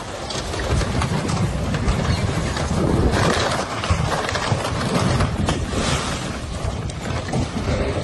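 Loud rushing storm noise, swelling and easing in surges, with a heavy low rumble.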